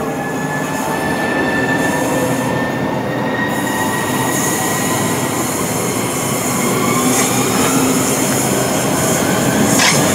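Southeastern Class 395 Javelin electric multiple unit moving off and accelerating, with a whine that rises slowly in pitch over steady wheel-on-rail noise. The train noise grows louder near the end.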